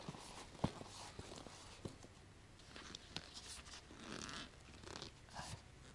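Bicycle tyre being worked back onto its rim by hand: faint rubbing and scraping of rubber against the rim, with scattered light clicks.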